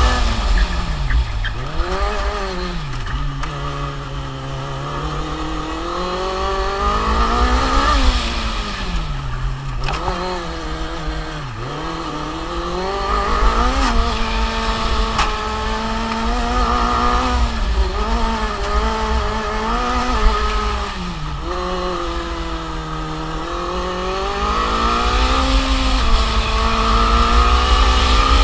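Formula Student race car's engine heard onboard, its pitch climbing and falling again and again as the car accelerates out of corners and slows into the next ones.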